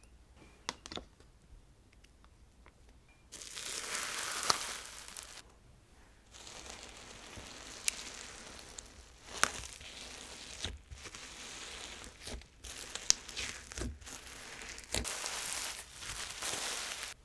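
Hands poking, squishing and stretching a snow fizz slime mixed with soft clay, giving a crackly hiss broken by sharp clicks. It starts about three seconds in; before that there are only a few faint clicks.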